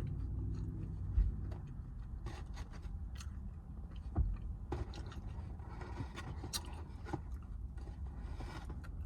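A person chewing and biting food, with scattered small clicks and ticks, over a steady low rumble.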